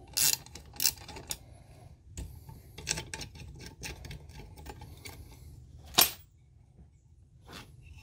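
Ratcheting box-end wrench clicking as it turns the bolt on a light bar's mounting bracket, in short runs of quick clicks, with a louder metal clack about six seconds in.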